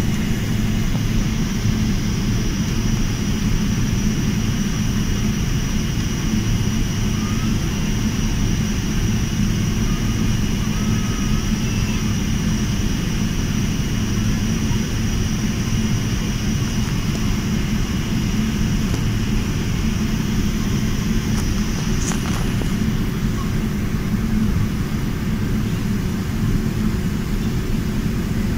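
Jet airliner's turbofan engines running during taxi, heard from inside the passenger cabin: a steady low rumble with a steady high-pitched whine over it.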